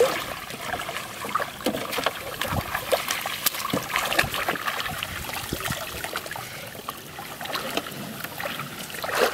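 Shallow water splashing and trickling in irregular small strokes as a fishing net is worked by hand over a plastic tub, water dripping from the lifted net.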